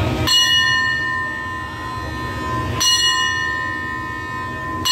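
Railway station's hand bell struck three times, about two and a half seconds apart, each stroke ringing on with clear, steady tones until the next. At a Thai railway station this bell is rung as the signal for a train's departure.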